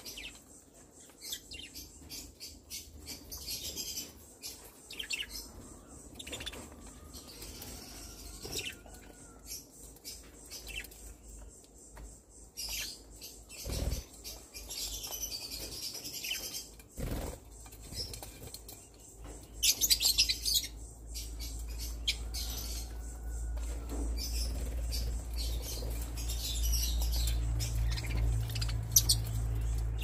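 A flock of budgerigars chirping, short high-pitched chirps scattered throughout and loudest about twenty seconds in. A low steady hum comes in during the last third.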